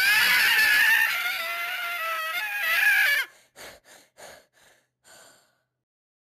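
Talking Tom Cat app's high-pitched cartoon cat voice: a loud, wavering squealing cry for about three seconds, then five short bursts that fade away.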